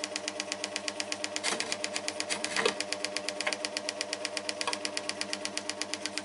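Switzer 125 W 16-inch scroll saw running with no workpiece: the motor hums and the blade clatters up and down at an even rhythm of about eight strokes a second. There are two knocks near the middle, the second the louder.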